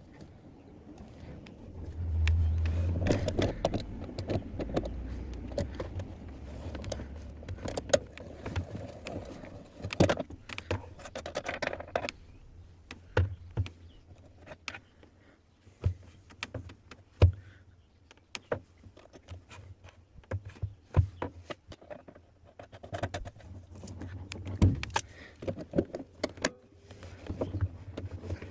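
Metal parts and tools of a top-loading washing machine's gearbox clinking and knocking irregularly as it is worked on by hand, with a low rumble for a few seconds near the start.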